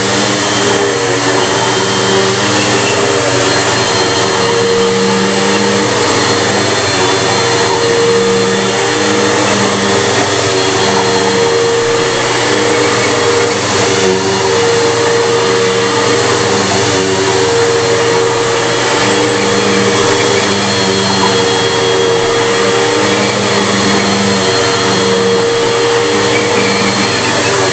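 Bissell PowerForce bagless upright vacuum cleaner running continuously. Its motor hum holds steady, with a lower tone that comes and goes as it is worked.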